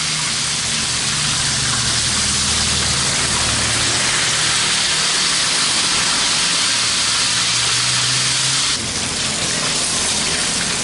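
Pieces of gourami fish frying in hot oil in a wok: a steady, dense sizzle that eases slightly near the end.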